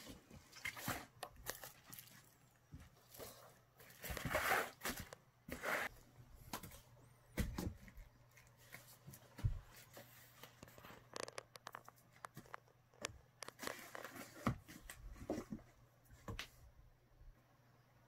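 A cat pawing and scratching at bubble wrap and cardboard inside a box: irregular crinkling and scratching, with a couple of dull thumps against the box.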